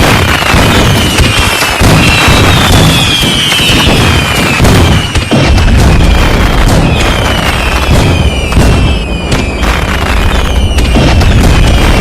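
Dense fireworks going off: many bangs and cracks over a continuous rumble, with many short whistles that fall in pitch.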